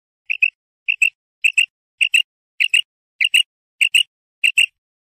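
Female common quail calling: a rapid series of short double notes, a pair about every 0.6 seconds, eight pairs in all. This is the female's call that hunters use as a lure.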